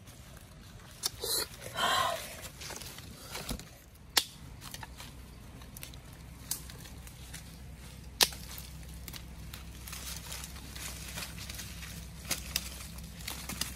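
Dry sticks and branches being gathered and handled by hand, with sharp snaps and clicks of wood every second or two and footsteps on dry leaf litter. A loud rustle about two seconds in.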